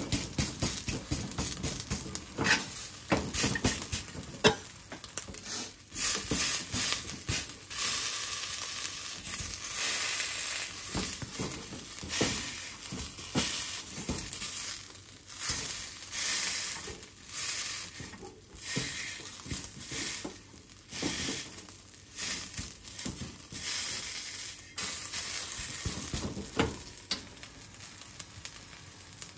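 Rice sizzling in a hot wok while a wooden spatula scrapes, pushes and taps it around the pan in irregular strokes, breaking up a clump of fried rice made from frozen rice. The stirring stops and the sound quietens near the end.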